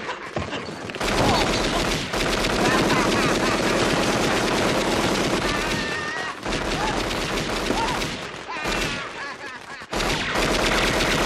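Rapid machine-gun-like crackle: a string of firecrackers going off in a metal can together with submachine-gun fire. It runs almost without a break, easing briefly about six seconds in and again near nine seconds, with a man's yells over it.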